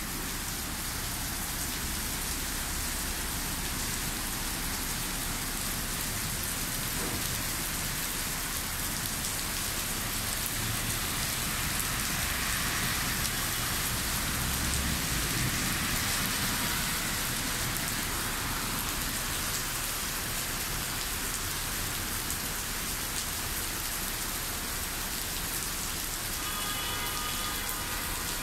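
Heavy rain pouring onto a wet street and pavement: a steady hiss of rain and splashing, swelling a little louder for a few seconds midway.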